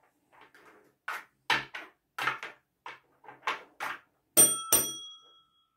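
Plastic cups clacking as they are quickly picked up and stacked on a tabletop, then a tap bell struck twice in quick succession near the end, the second ring fading out.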